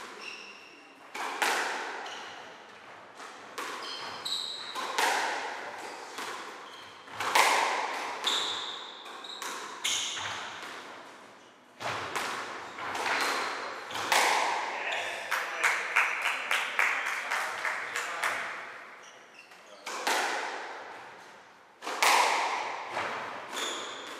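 Squash rally: the rubber ball struck by rackets and smacking off the front wall, echoing around the court, a strike every second or two with a quick run of strikes partway through. Short shoe squeaks on the wooden floor come between the shots.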